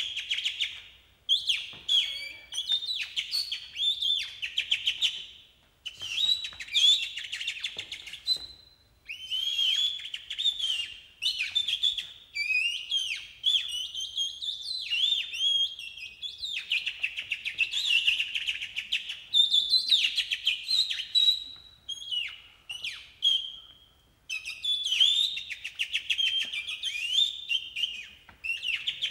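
Human imitation of birdsong made with the mouth: rapid chirps, tweets and twittering trills in short phrases with brief pauses between them.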